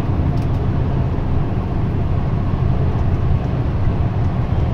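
Steady low rumble of a moving vehicle's engine and tyres on the road.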